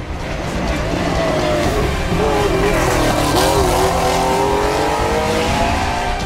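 Porsche 911 rally car's flat-six engine under load on a winding road. The note sinks over the first few seconds, wobbles about three seconds in, then climbs slowly as the car accelerates.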